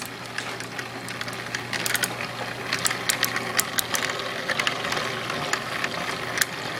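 Motorized tornado-in-a-tube toy running: its small motor whirs steadily as the water swirls in a vortex, with scattered light clicks and ticks throughout.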